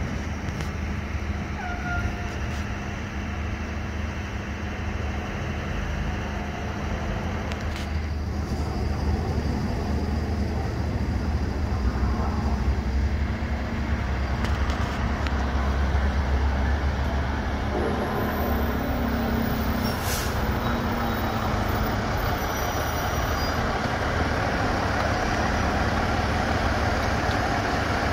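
Diesel engines of a fire engine (a Spartan MetroStar pumper) and a tractor-drawn aerial ladder truck running at low speed as they come closer. The steady low rumble grows somewhat louder.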